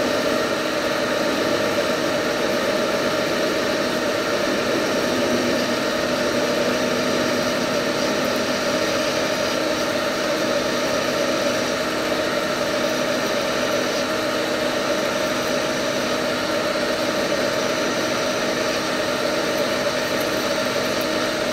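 Metal lathe running at slowed-down speed while a parting tool is fed into the spinning workpiece to cut it off: a steady machine hum with a constant tone and cutting noise that does not change.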